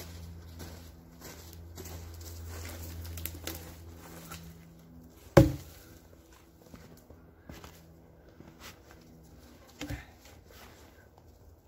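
Footsteps in snow, then a single heavy thud about five seconds in as a cut log is dropped onto a fallen tree trunk, and a lighter knock near the end as the log is shifted into place.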